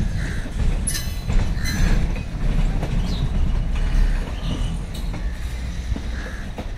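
Train of motor car carrier coaches, converted from old passenger coaches, rolling past: a steady low rumble of wheels on rails with irregular clicks.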